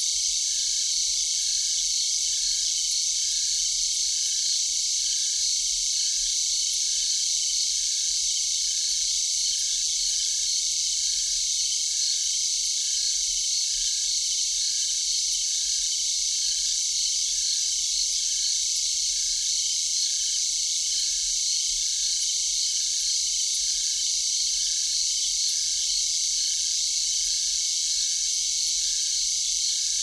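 Night insect chorus: a steady high-pitched trilling drone, with a fainter, lower chirp repeating about three times every two seconds.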